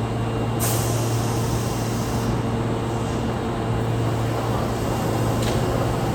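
Osaka Metro 22 series subway train standing with a steady low electrical hum, and a burst of compressed-air hiss from its air brakes starting about half a second in and lasting under two seconds.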